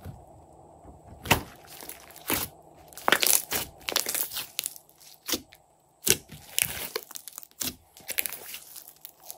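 Glossy slime squeezed and kneaded by hand, giving sharp irregular clicks and crackling pops, with a short lull about halfway through.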